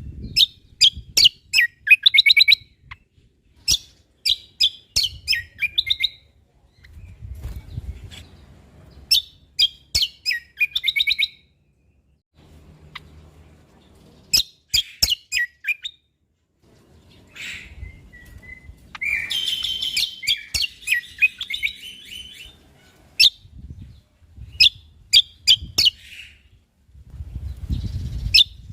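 Cucak kombo (kecial kombok) songbird singing: short phrases of rapid, high chirps that sweep downward, repeated every few seconds with brief gaps, and a harsher, scratchy chattering passage about two-thirds of the way through. A faint low rumble lies under some phrases.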